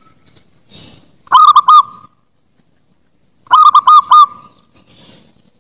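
Zebra dove (perkutut) cooing: two phrases, each a quick run of about four clipped notes ending in a short held note, the second phrase about two seconds after the first.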